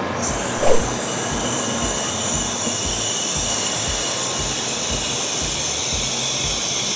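N700S Shinkansen bullet train pulling into the platform: a steady rush of wheel and air noise with a high whine on top. A short loud tone sounds just under a second in, and a low thump repeats about three times a second underneath.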